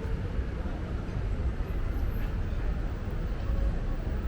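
Outdoor town street ambience: a steady low rumble with no distinct events.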